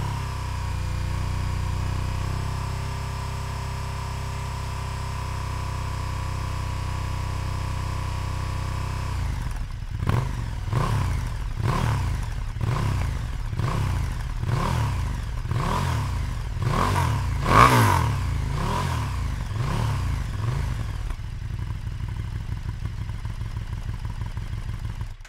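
KTM 1290 Super Duke GT's V-twin engine on its stock silencer, held at a steady 4,000 rpm for about nine seconds. It is then blipped on the throttle about a dozen times, roughly once a second, and settles back to a steady run.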